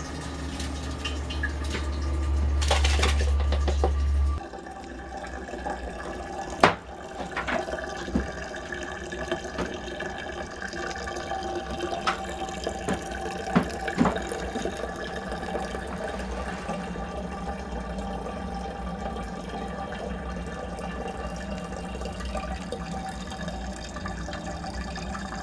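Freshly pressed red wine running from the spout of a basket press through a plastic funnel into a glass bottle: a steady trickling pour with a few small clicks. A loud low hum fills the first four seconds and cuts off suddenly.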